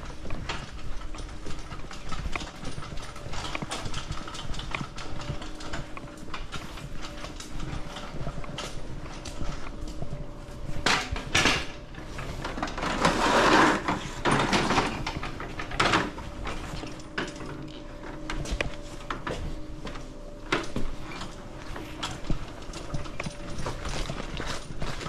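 Irregular clattering knocks and clicks over a faint steady hum, with a louder rushing burst a little past the middle.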